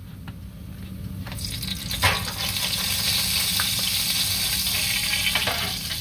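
Cooking oil in a frying pan sizzling as it heats on the stove, growing louder about a second in and then holding steady: the oil is getting hot but is not yet ready for frying. A light knock about two seconds in.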